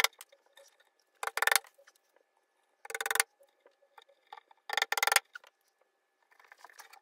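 Four short scraping squeaks, about one every second and a half, from assembling a flat-pack bedside table, heard in sped-up audio.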